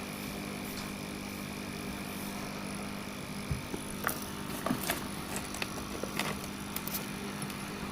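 Sunsun CT202 aquarium air pump running with a steady hum, mixed with the tank's powerhead running. A few light clicks and taps come in from about halfway through.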